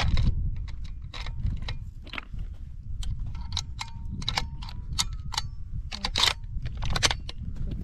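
Irregular metallic clinking, a dozen or more sharp clinks, several ringing briefly, over a steady low rumble.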